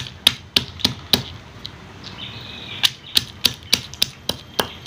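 Stone pestle striking a lemongrass stalk on a stone mortar to bruise it: sharp, even knocks about three a second, in two runs with a pause of about a second and a half between.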